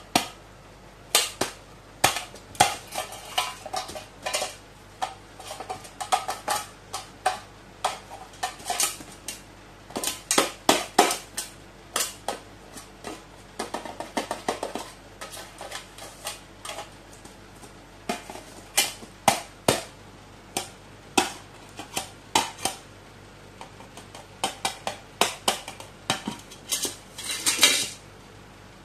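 A crow's beak pecking and prying at a tin pencil case, making irregular sharp metallic taps and clicks in clusters. Near the end comes a quick flurry of clatter as the lid comes fully open.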